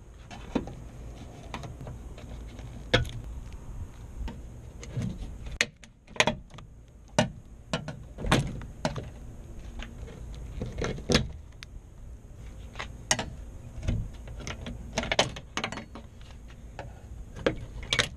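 Scattered sharp clicks, taps and knocks of hand work on a stripped car door: a metal clip removal tool against the door and a plastic wiring connector being handled.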